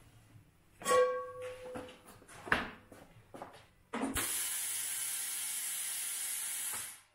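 A metallic clang with a brief ringing tone, a second knock, then about three seconds of loud, steady compressed-air hiss from the BL502-100 tyre changer's pneumatic pedal driving the turntable clamp jaws, cutting off suddenly near the end.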